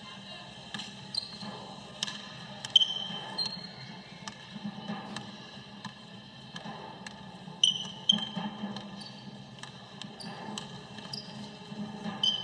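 A basketball bouncing on a hardwood gym floor in repeated dribbles, with short high sneaker squeaks; the loudest knocks come a few seconds in and again past the middle.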